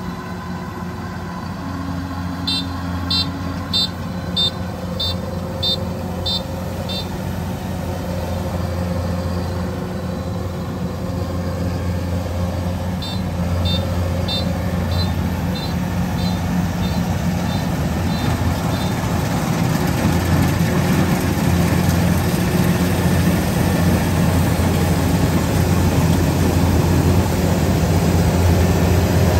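Kubota DC-93 combine harvester running steadily as it cuts and threshes rice, its diesel engine droning and growing louder toward the end. Twice, a run of short high beeps, about two a second, sounds over the engine for several seconds.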